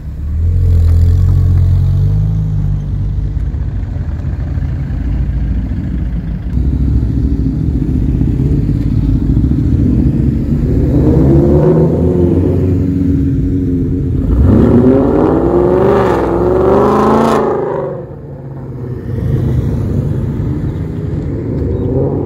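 Vehicles pulling away one after another. A motorcycle trike towing a small trailer passes with a deep engine rumble. Then a Ford Mustang accelerates, its revs rising and dropping several times, and near the end motorcycles approach with rising engine notes.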